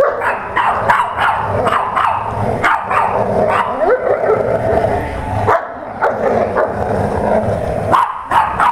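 Dogs barking and yipping in play while tugging on a toy in a tug-of-war, the sound going on without a break.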